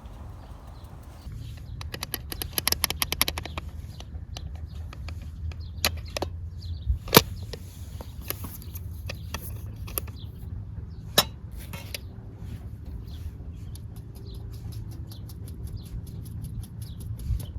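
Wood fire crackling, with a dense burst of rapid crackles about two seconds in and scattered sharp pops, two of them loud, over a low steady rumble.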